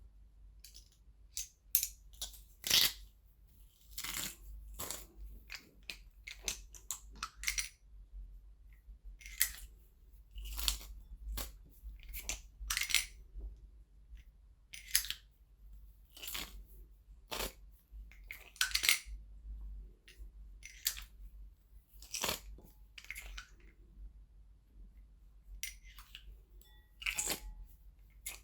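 Garlic being crushed: a series of short, sharp crunches and cracks at irregular intervals, about one every second or two.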